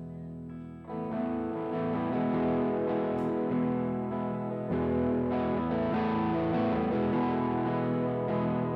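Live worship band playing a song's instrumental intro, led by electric guitar with effects; the full band comes in about a second in.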